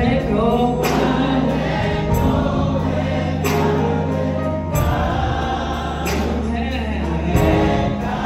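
A choir singing gospel music over sustained low accompanying notes.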